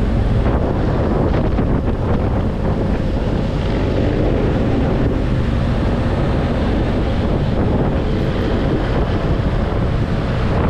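BMW F800GS parallel-twin engine running steadily on the move, under heavy wind noise over the microphone.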